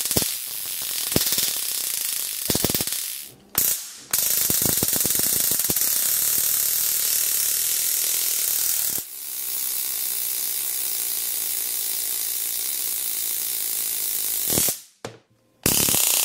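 Handheld stun gun discharging, its electric arc crackling as a rapid string of clicks across the prongs pressed to an iPhone X's metal frame. It runs in long bursts, with short breaks about three and a half seconds in and near the end.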